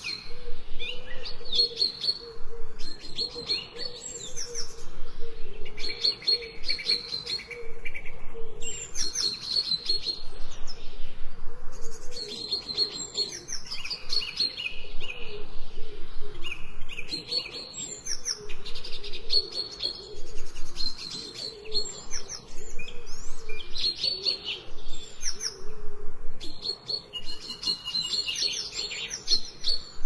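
Songbirds chirping and singing, several voices in short, overlapping phrases that come every couple of seconds.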